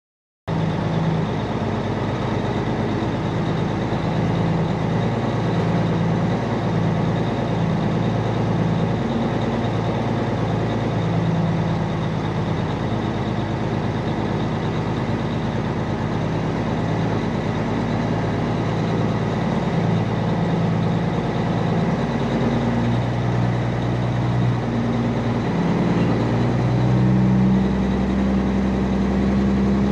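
Peterbilt semi truck's Cummins diesel engine running as the truck drives, a steady low engine note that shifts in pitch a few times in the later part and grows a little louder near the end.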